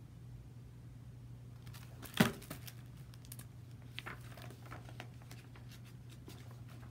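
Pages of a hardcover picture book being handled and turned: paper rustling and crinkling, with one sharp paper snap about two seconds in and scattered smaller rustles after it.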